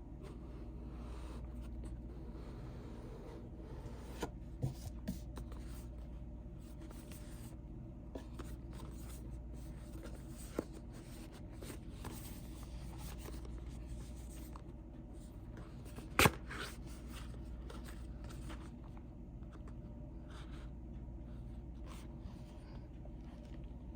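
Hands unboxing a Blink doorbell camera: packaging and parts rustling and scraping, with scattered light clicks and one sharp click about sixteen seconds in, over a steady low hum.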